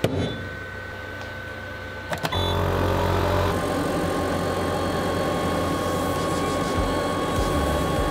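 Makeblock Laserbox laser cutter running a cutting job: a sharp click at the start, then a steady fan hum. About two seconds in, after a couple of clicks, it gets louder and a steady whine joins as the laser head traces a circle.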